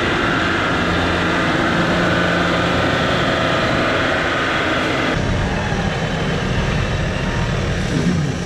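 Land Rover Defender engine running under load as the truck pushes slowly through deep mud ruts, the sound changing about five seconds in.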